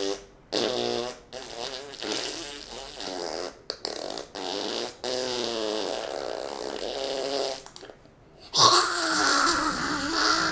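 A boy making mouth sound effects for his toy figures: a string of short buzzing, fart-like raspberries with his voice in them, then a longer, louder open-mouthed vocal noise near the end.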